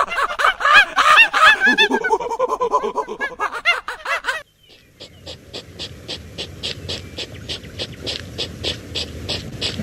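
A loud, fast-warbling animal call runs for the first four seconds or so and stops suddenly. After a short gap, a hedgehog sniffs and snuffles in quick breathy puffs, about three a second.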